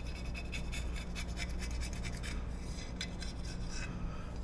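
Razor blade scraping old gasket material off an engine's clutch cover sealing surface in quick, repeated strokes. The gasket is not baked on and comes off easily.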